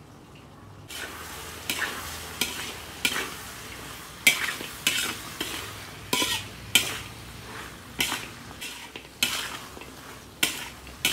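Metal spatula scraping and knocking against a metal wok while stirring fried beef lung pieces in chilli sauce, with a frying sizzle underneath. The stirring starts about a second in, each stroke a sharp scrape, roughly one or two a second.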